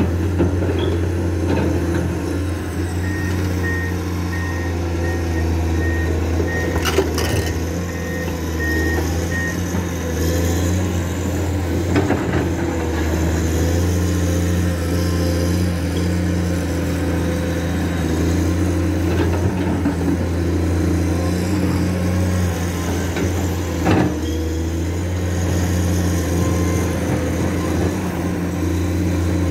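Komatsu PC210 excavator's diesel engine running steadily. For a few seconds early on, a high electronic beep repeats about twice a second, and there are a few sharp knocks.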